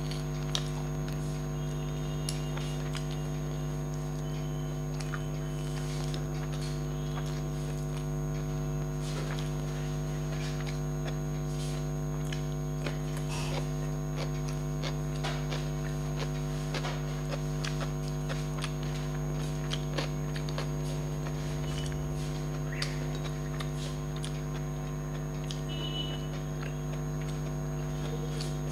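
Steady electrical mains hum, the loudest sound, with soft, scattered clicks and smacks of someone chewing and eating by hand over it.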